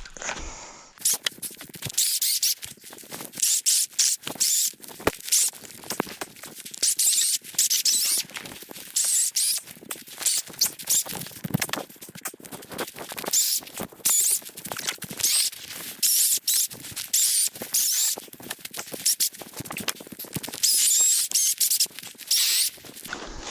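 Hand saw cutting through dry wood: a steady run of quick back-and-forth rasping strokes, the wood nice and dry so it cuts easily.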